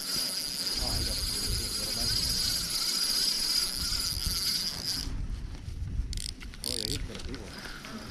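Spinning reel whirring steadily as a hooked salmon is fought on the line, then cutting off abruptly about five seconds in, followed by a few brief rustles.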